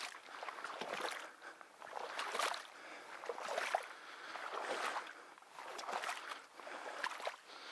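Footsteps sloshing through shallow marsh water and tall grass, a splashing, squelching swish with each step, about one step a second.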